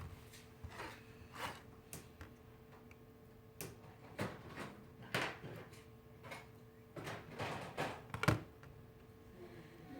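A small blade scraping and tapping on a smartphone frame as old adhesive is removed: a run of short, irregular scrapes and clicks, the loudest about eight seconds in, over a faint steady hum.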